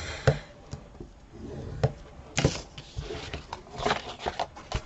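Cardstock and craft tools being handled while the card is scored: scattered light taps, clicks and paper rustles.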